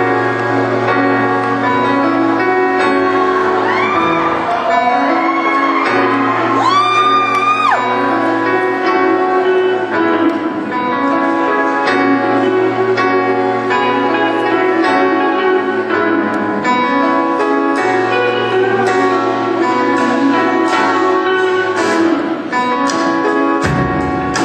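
Live band playing an instrumental groove on drum kit, guitar, keyboard and saxophone, with steady drum hits and a low held bass note that keeps returning every few seconds.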